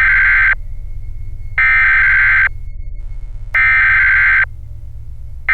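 Electronic alarm beeping: harsh, buzzer-like tones about a second long, repeating about every two seconds over a steady low hum.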